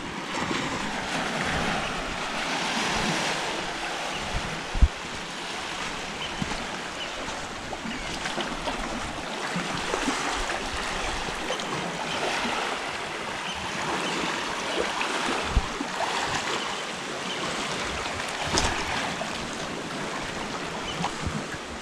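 Small waves washing in over the sand and rocks of a cove, swelling and fading every few seconds. A few brief thumps, the sharpest about five seconds in.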